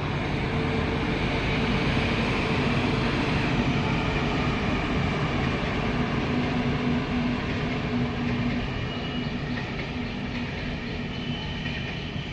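Indian Railways passenger train running past on the track, a steady rumble of wheels on rails that holds even throughout.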